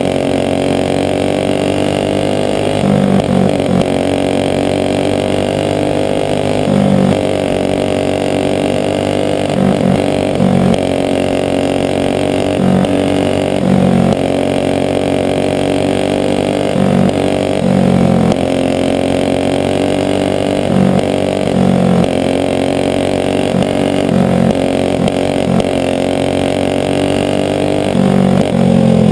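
Single-cylinder flathead kart engine running at high revs under racing load, heard from on board; its steady note sags slightly and climbs back several times through the lap.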